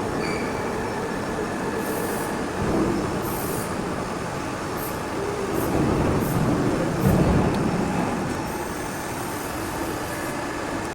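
CNC hydraulic press brake running: a steady mechanical rumble that swells about six seconds in, with a brief loud peak near seven seconds.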